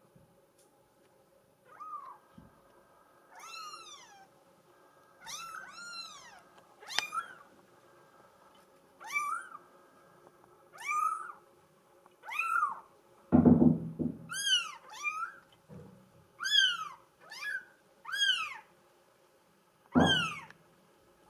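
Very young Bengal kitten mewing over and over, short high-pitched cries that rise and fall in pitch, about one a second. Two low thumps, about halfway through and near the end, are the loudest sounds.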